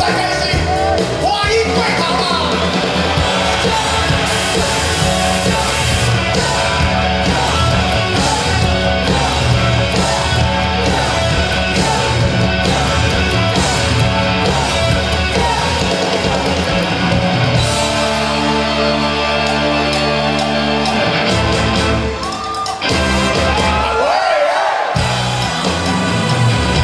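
Live rock band playing loudly: electric guitar, bass and drums under a male lead vocal. About 22 s in the band cuts back briefly, the low end dropping out and leaving voice and guitar, before the full band comes back in.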